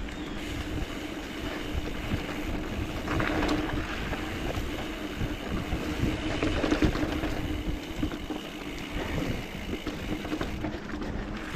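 Steady rolling rumble and rattle of a mountain bike being ridden, with wind buffeting the microphone.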